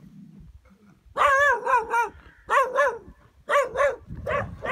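A dog barking over and over in short, loud barks, starting about a second in and mostly coming in quick pairs.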